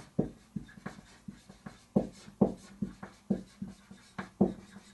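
Marker pen writing on a whiteboard: a run of short, irregular strokes and taps as the text is written.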